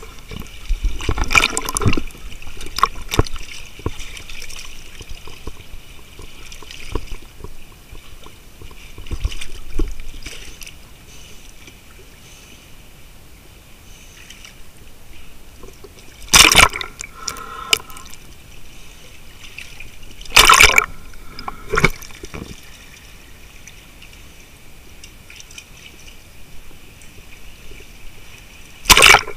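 Water sloshing and bubbling around a camera held underwater in rough surf, with several sudden loud noises: one a little past halfway, two more soon after, and one at the very end.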